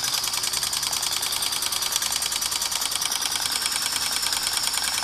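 Scratch-built live-steam model traction engine running in gear, a rapid, even mechanical clatter from its motion and gearing over a steady high hiss. It runs through a secondary gear, which the builder says keeps it quiet.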